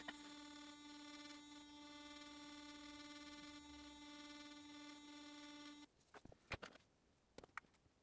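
Electric sonic toothbrush buzzing steadily, its head pressed against the bottom edge of an iPhone XS to brush dust out of the speaker grille and charging port. It switches off about six seconds in, and a few light clicks and taps of handling follow.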